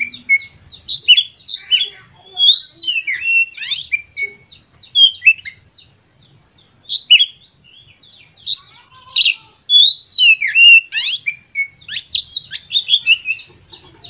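Oriental magpie-robin singing a loud, varied whistled song of sweeping notes in bursts of phrases. There is a pause about halfway through, and it ends on a fast run of short repeated notes. This is the excited song used as a lure to set other magpie-robins singing.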